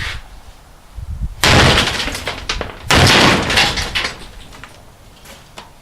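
Two heavy axe blows into a dishwasher about a second and a half apart, each a loud crash followed by clattering that dies away.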